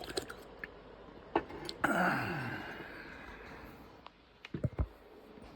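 A breathy sigh with a voiced tone falling in pitch, lasting about a second, about two seconds in. Small clicks come before it and a few short knocks near the end.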